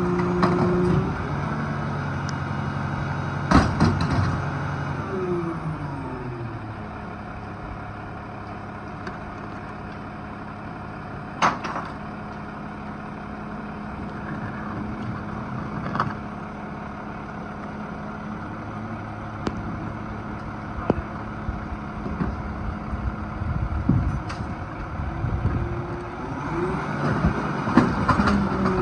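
Loadmaster rear-loader garbage truck running: its engine revs high at first, falls to a steady idle, then speeds up again near the end as the hydraulic packer cycles. Sharp knocks and cracks now and then as bulky furniture is thrown into the hopper.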